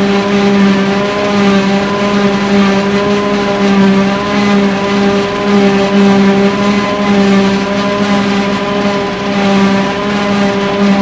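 John Deere 7750 self-propelled forage harvester running steadily under load while chopping hay, an even, loud mechanical drone with a strong steady pitch.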